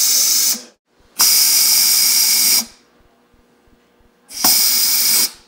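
Bench spark plug cleaner blasting a plug's firing end with compressed air and abrasive: a loud hiss in three bursts, each about a second long, that start and stop abruptly as the blast buttons are pressed and released.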